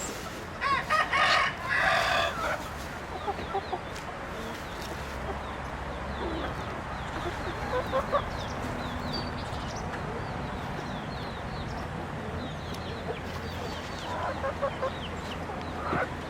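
A rooster crows once near the start, a loud call of about two seconds. Chickens cluck now and then afterwards, over many faint high chirps.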